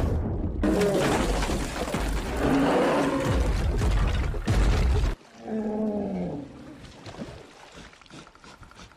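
A bear roaring and growling over heavy water splashing. The sound cuts off abruptly about five seconds in, followed by one shorter falling growl and then quieter sound.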